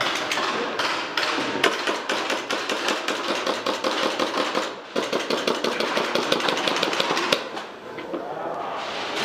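Airsoft electric guns firing on full auto: long strings of rapid, evenly spaced clicks, one for the first four or so seconds and another from about five seconds in until near the end, with a break between them.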